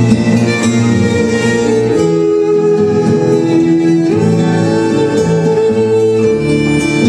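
Tango music playing, its melody moving in long held notes.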